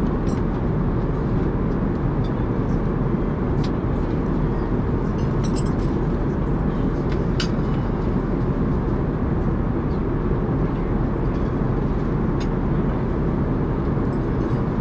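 Steady cabin noise of an Airbus A380 airliner in flight: a constant low rush of air and engine noise, with a few faint clicks.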